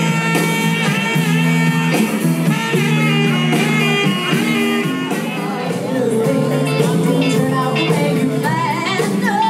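Live band playing a soft-rock song: saxophone, electric guitar, bass, drums and keyboard, with women's voices singing, the vocals coming forward near the end.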